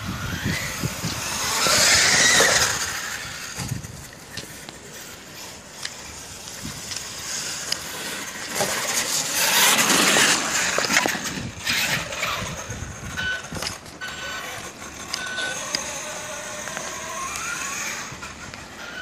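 Traxxas E-Revo Brushless Edition RC truck's electric motor whining up and down with the throttle, its tyres hissing through wet slush. It is loudest as it passes close, about two seconds in and again around ten seconds, when it sprays slush past the microphone.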